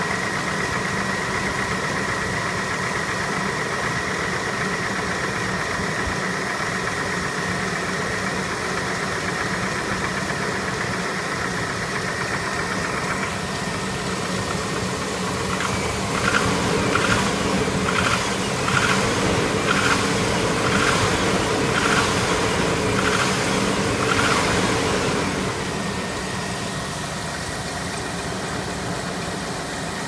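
A GMC 5.7 L Vortec small-block V8 idling shortly after a cold start, with a loud, fast tick-knock running through it: pretty noisy. This is the cold-engine noise that fades as the engine warms, which the owner takes for piston slap, though some would call it rocker or lifter noise. Past the middle, a run of louder clacks comes about once a second for several seconds.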